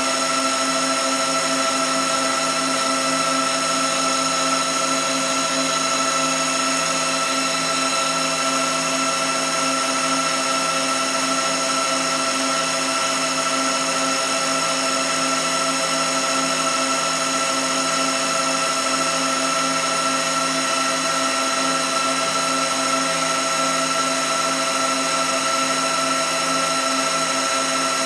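A machine running steadily: an even whine of several constant tones over a hiss, with no change in pitch or level.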